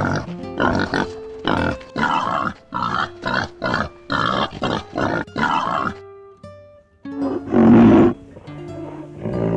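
Boars grunting in quick short bursts, several a second, over background music. After a short pause, a louder, longer low animal call comes about three-quarters of the way in.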